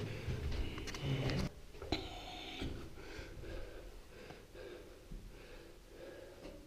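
A person breathing hard while climbing inside a small rock-cut cave chamber, with scuffing and low handling rumbles at first and a sharp knock about two seconds in.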